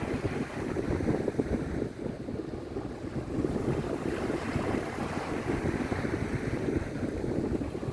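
Wind buffeting the microphone over the steady rush of the sea, a low rumbling hiss that swells and eases without pause.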